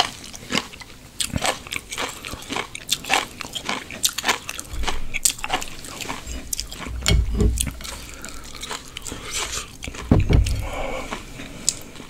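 Close-miked chewing and mouth sounds from the last of a bowl of makguksu noodles: a steady run of wet clicks and smacks, with low thumps about five seconds in and again near ten seconds.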